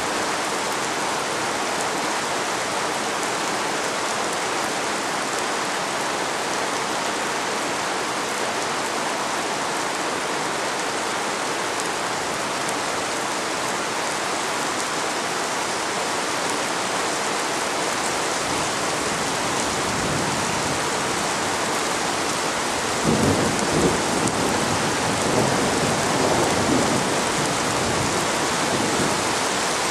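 Steady rain falling during a thunderstorm. About two-thirds of the way through, a low rumble of thunder builds and rolls on for several seconds before fading back into the rain.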